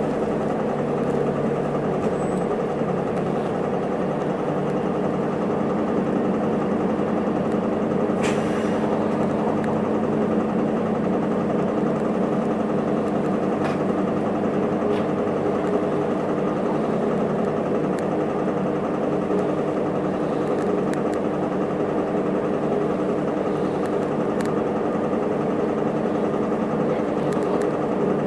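Isuzu Erga city bus's four-cylinder turbo diesel heard from inside the cabin, idling at a steady, unchanging pitch, with a few faint clicks and rattles.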